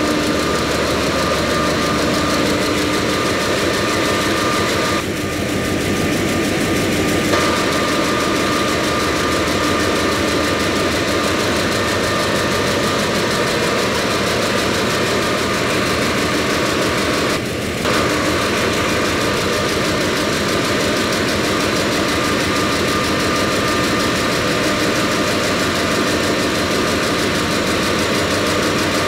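Large engine running steadily in an enclosed engine room, a loud continuous machinery noise with steady tones. The level dips briefly twice, about five seconds in and again about seventeen seconds in.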